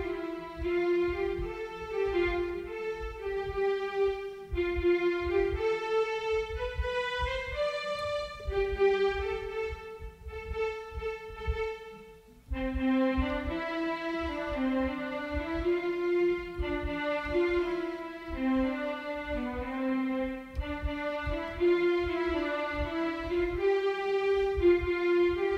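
Instrumental background music: a pitched melody over a steady low beat. It dips away about twelve seconds in and comes straight back in.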